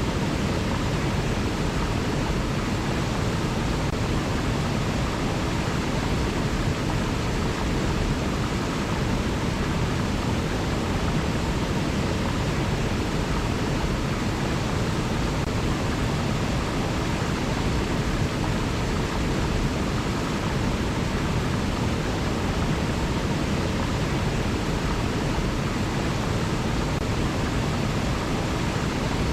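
River water rushing in a steady, unbroken noise, heaviest in the low end.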